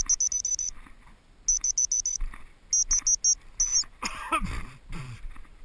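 Bursts of rapid high-pitched electronic beeps in three quick groups, then a single warbling chirp, from a hunting dog's beeper collar. A louder rustling scuffle follows about four seconds in.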